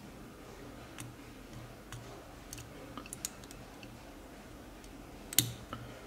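Faint, scattered ticks and clicks of a hook pick working the rear pins of a Viro Panzer 4117 padlock's pin-tumbler cylinder under tension, with one sharper click about five seconds in. A faint low hum runs underneath.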